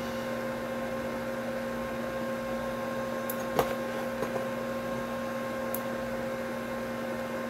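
Steady electrical mains hum and hiss in the recording, with a faint click about three and a half seconds in and another near six seconds.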